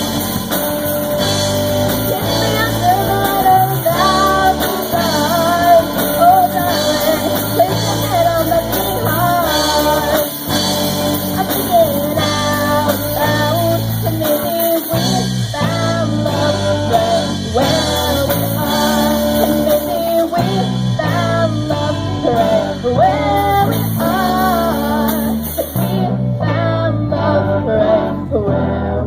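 Live band playing a slow ballad on guitar and bass, with a melodic lead line bending over the chords. The bright top end drops away near the end as the song winds down.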